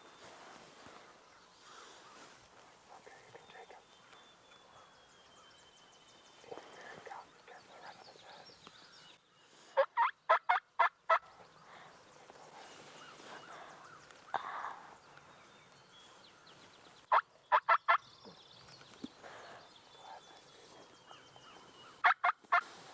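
Wild turkey tom gobbling three times, each gobble a loud, fast rattling run of notes, the gobbles about seven and five seconds apart.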